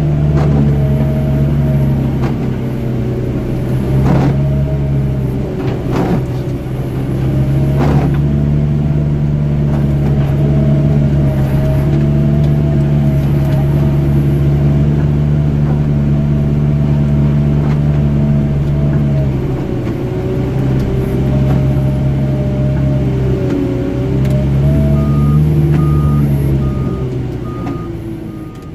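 John Deere 244K compact wheel loader's diesel engine running steadily while plowing snow with a sectional plow, with a wavering whine over it and a few sharp clunks in the first eight seconds. The engine note dips twice past the middle, and a backup alarm beeps steadily near the end as the loader reverses.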